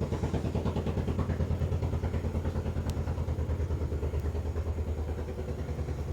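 An engine running steadily with a fast, even pulse, like a small motor idling.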